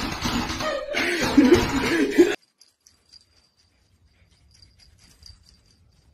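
A person laughing over a noisy background, cut off suddenly after about two seconds, followed by faint light ticking.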